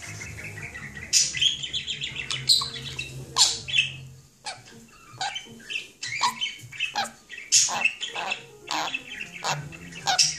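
Sun conure chattering: a rapid, irregular run of short squawks and chirps, many sweeping downward in pitch, over a low hum.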